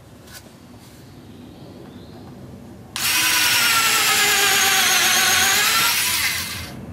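Pen-type cordless driver drill in drill mode, boring a pilot hole into a wooden board with a thin pilot-hole bit. About three seconds in the motor starts with a steady whine that sags slightly in pitch under load, then winds down just before the end.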